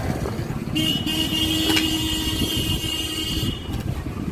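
A horn sounds one steady held note for nearly three seconds, starting about a second in and cutting off abruptly, over a steady low rumble.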